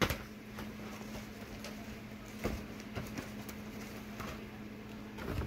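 Empty cardboard cat-food case boxes being handled and shifted on a bed: a few scattered soft knocks and rustles, with a steady low hum underneath.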